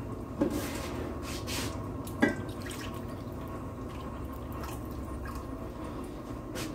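Home-canned chicken stock poured from a glass canning jar into a glass measuring cup, the liquid trickling and splashing. Two light knocks break in, the louder one with a short glassy ring about two seconds in.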